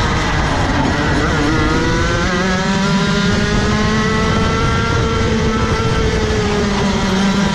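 Rotax Max Evo 125cc two-stroke kart engine at full throttle out of a corner: its pitch climbs steadily for about four seconds as the kart gathers speed, then holds near the top, easing slightly near the end.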